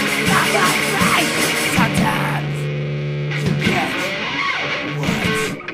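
Noisy punk rock recording, a full band with distorted electric guitar and drums. Midway the drums and cymbals drop out for about a second, leaving a held note, before the band comes back in.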